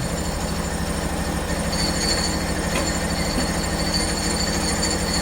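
Hudson HFE-30 portable band sawmill running: a steady engine note with even high-pitched whining tones held above it.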